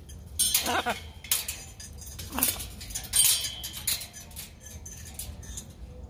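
A parrot gives two short falling calls, one about a second in and one midway through, among sharp metallic clicks and clinks.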